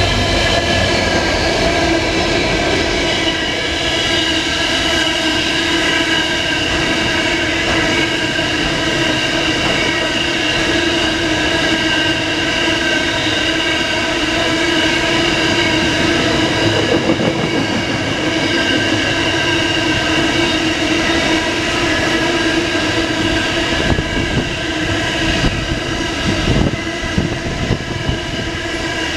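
Loaded coal train's hopper wagons rolling past close by, a steady rolling rumble with a sustained whine over it and a few knocks near the end.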